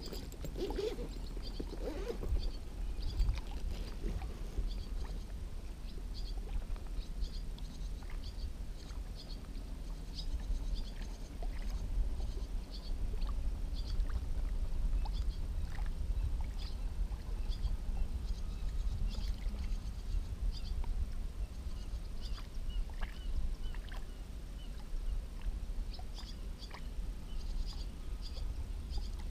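Water lapping and splashing lightly against an inflatable float tube, with many small scattered ticks and drips over a steady low rumble.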